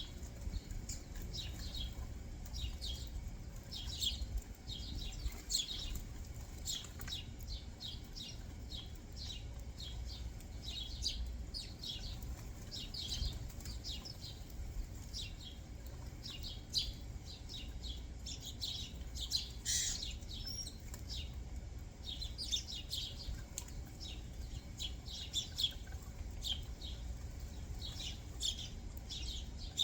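Backyard songbirds chirping: many short, quick notes, several a second, with one louder, sharper call about twenty seconds in, over a steady low rumble.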